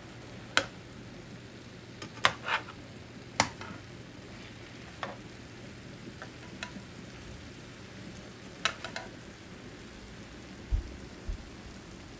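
Sausages sizzling and bubbling in a frying pan with a shallow layer of juice, while a metal slotted spatula turns them, clinking and scraping against the pan several times over the first nine seconds. Two dull thumps come near the end.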